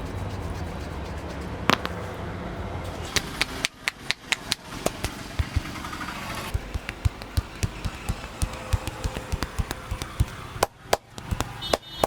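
Sharp slaps and taps of a barber's hands in a massage, several a second, starting about four seconds in with a short pause near the end. Before them a single sharp snap sounds over a low steady hum.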